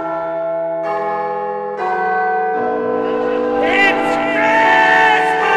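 Background music opening with sustained bell-like chords that build up in steps about a second apart; a singing voice comes in about halfway through.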